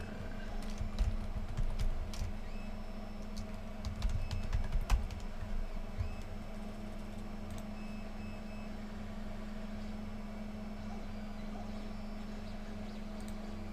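Typing on a computer keyboard, with scattered key clicks and a few soft knocks in the first six seconds, over a steady low hum.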